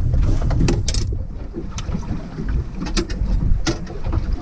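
Wind rumbling on the microphone aboard a small open boat at sea, with a few sharp knocks and clicks from fishing gear being handled. The loudest knock comes about three and a half seconds in.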